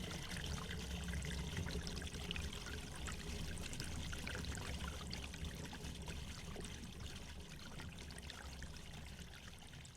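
Water trickling and splashing in a stream, a steady run of small splashes over a low rumble, fading out gradually near the end.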